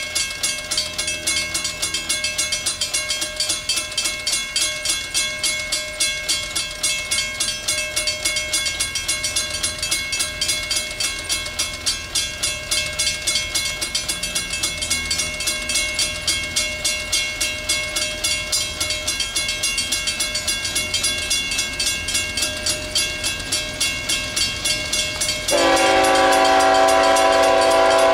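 Old mechanical grade-crossing bell ringing in quick, even strokes, over the low rumble of GE locomotives working hard in Notch 8 on a grade. Near the end the lead CSX ET44AH's K5HL air horn starts blowing, a loud held chord that drowns out the bell.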